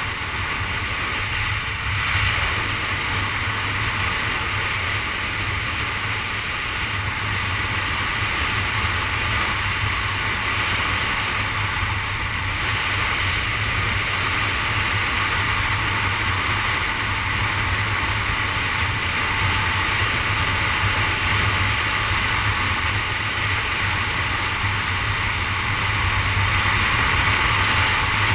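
Steady road and wind noise from a car being driven, with the engine's low hum underneath.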